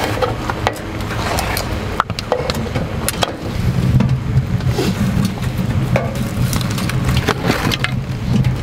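Folding knife slicing garlic cloves on a wooden cutting board, then laid down on the board, while the wood fire in the stove crackles with scattered sharp pops over a low steady hum.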